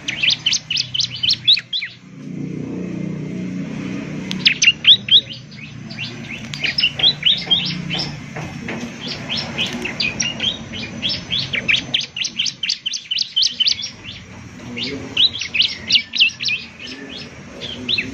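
Bar-winged prinia (ciblek) singing in repeated bouts of rapid, sharp, high notes, each bout lasting one to two seconds with short pauses between.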